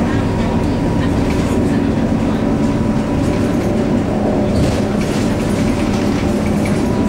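Scania K230UB bus's DC9 diesel engine and ZF Ecomat automatic gearbox running steadily at cruising speed, heard inside the passenger cabin together with steady road and tyre noise.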